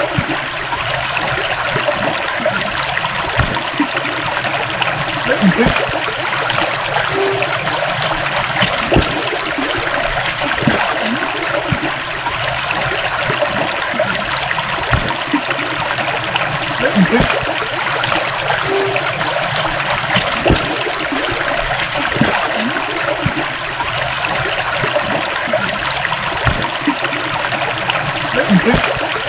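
A small stream's water running steadily over stones, with small gurgles and trickles throughout.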